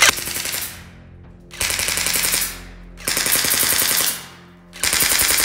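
G&G PRK9 airsoft electric gun (AEG) firing full-auto, its gearbox and motor cycling: four bursts of rapid shots, about a second each, with short pauses between.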